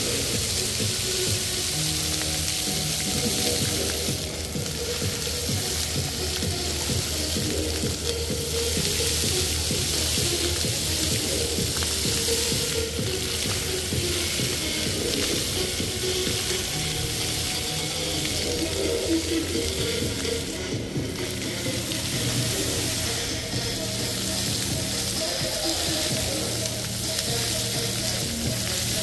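Dancing fountain jets spraying and splashing onto wet paving, a steady hiss of falling water, with the show's music playing underneath.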